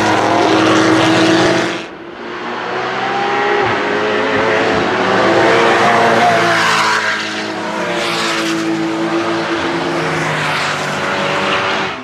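An open-wheel racing car's engine at full throttle, cut off abruptly about two seconds in. Then a second racing car's engine builds up, revving high, its pitch rising and falling as it climbs past.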